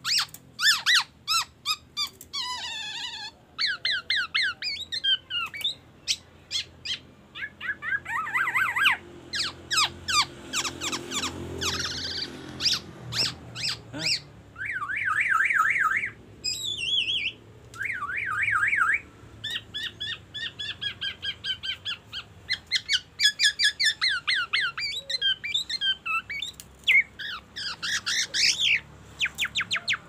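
Black-naped oriole singing vigorously: a varied string of rapid chattering trills, sharp chirps and gliding whistles in short phrases with brief pauses, including phrases copied from the white-rumped shama's song.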